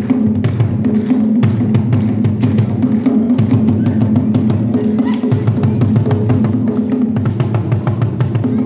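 Live drumming on West African djembe drums, one of them beaten with a stick, playing a fast, dense, steady rhythm.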